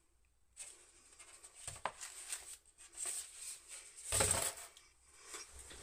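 Paper and cardboard being handled on a wooden table: soft rustles, a small tap about two seconds in, and a louder scrape a little after four seconds in.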